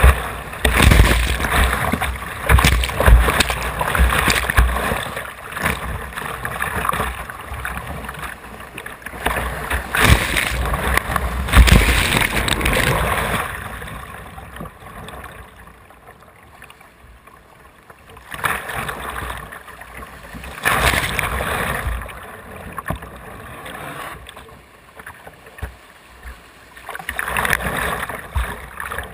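Whitewater rapids rushing and splashing against a kayak's bow as it runs the channel. The water is loud for the first dozen or so seconds, eases to a lower wash in the middle, and surges up again in waves of splashing later on.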